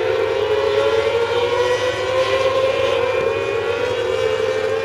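Mini sprint car engines running at high revs as a pack of cars races past. It is a high, steady engine note that swells slightly and then eases off.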